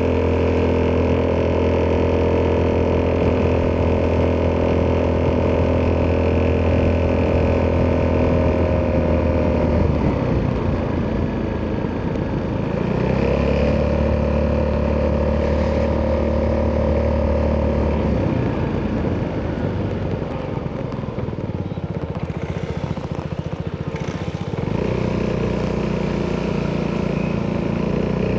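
Italjet Dragster 200's single-cylinder four-stroke engine running through an Akrapovič exhaust under way, holding a steady note on the throttle. It eases off twice, about ten seconds in and again near eighteen seconds, with the note dropping to an uneven, quieter beat before picking up again near the end.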